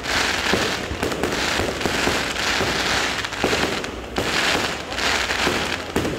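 Fireworks going off: a dense crackling hiss that swells and fades in waves, with many sharp pops and bangs throughout.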